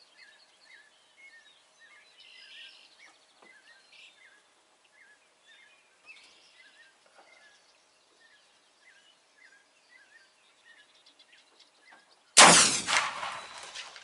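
A bird chirps in short, evenly repeated calls over a quiet background. About twelve seconds in, a single loud .45-70 rifle shot goes off, followed by a long decaying echo.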